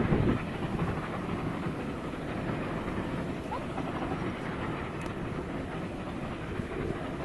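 Distant steam-hauled passenger train, led by BR Standard Class 8 Pacific 71000 'Duke of Gloucester', crossing a viaduct: a steady rumble of the train on the rails, a little louder at the very start.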